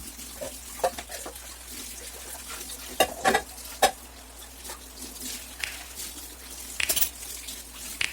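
Household items knocked and clinked together while being handled during cleaning, irregular clicks and clatters with a sharper cluster about three seconds in and again near seven seconds.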